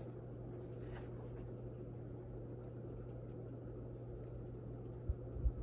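Room tone: a steady low hum, with faint rustling as the sneakers are handled and two soft low thumps about five seconds in.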